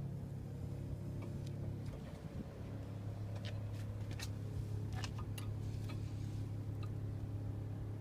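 Scattered faint light clicks and taps, about a dozen irregularly spaced, over a steady low hum.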